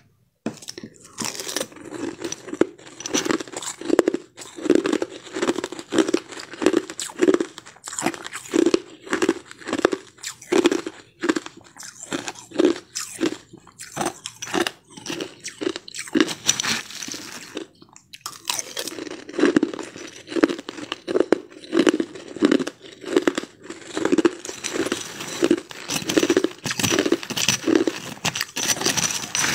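A person crunching and chewing crushed ice in an even rhythm of about two bites a second, with a brief pause about 18 seconds in.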